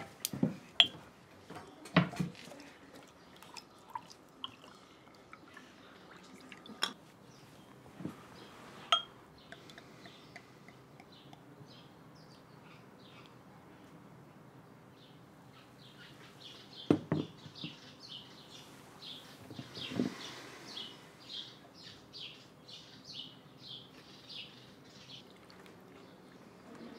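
Beer bottles and glasses knocking and clinking on a table, then beer poured from a bottle into a glass, which gives a run of short splashing trickles in the last few seconds.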